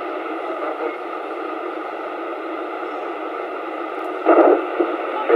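CB radio receiver hiss: a steady rush of static from the radio's speaker on an open channel, with a short louder crackle about four seconds in.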